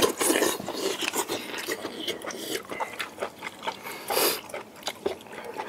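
Close-up eating sounds: wet chewing and lip-smacking with many small clicks, and two louder breathy slurps, one at the start and one about four seconds in.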